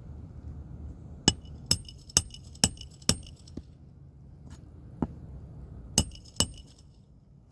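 A series of sharp taps on a hard object that rings briefly with a glassy chink: five taps about half a second apart, then one more, then a close pair near the end.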